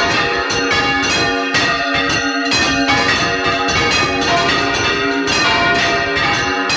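Five church bells swinging full circle on their counterweighted yokes (Valencian volteo), all ringing together in a loud, continuous stream of overlapping strikes, heard close up from inside the belfry.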